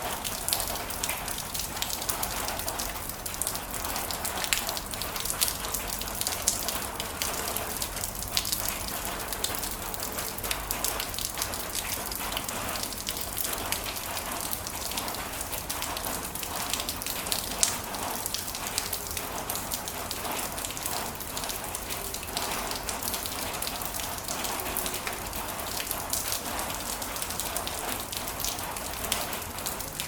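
Heavy rain falling steadily, a dense patter of many sharp drop hits.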